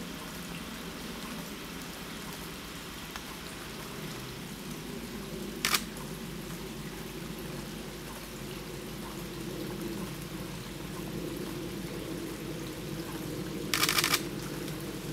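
Small stream of water trickling steadily over rocks into a shallow pool. A camera shutter clicks once about a third of the way in, and a quick burst of shutter clicks comes near the end.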